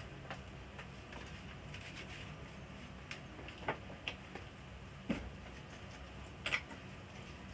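Scattered light clicks and taps of small parts and tools being handled, irregular and a second or so apart, with the loudest about five and six and a half seconds in, over a low steady hum.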